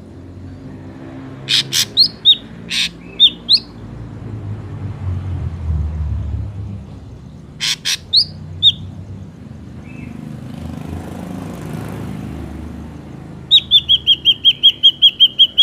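Ashy drongo calls played as a lure: short harsh notes mixed with brief whistled notes, then about two seconds before the end a fast run of a dozen ringing notes, about six a second. A low rumble rises and fades under the calls midway.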